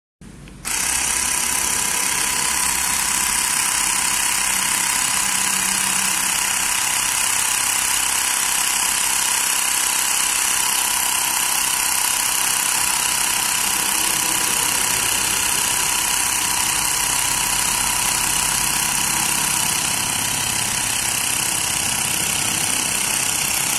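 Xiaomi Mi Portable Electric Air Compressor starting about half a second in and running steadily as it inflates a motorcycle tyre.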